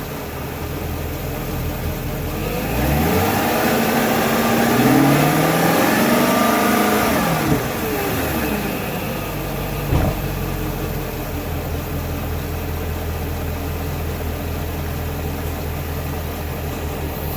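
BMW E39 540i's 4.4-litre M62TU V8 idling, revved up once for several seconds and settling back to idle, on an engine with a squealing drive belt or pulley. A single sharp click about ten seconds in.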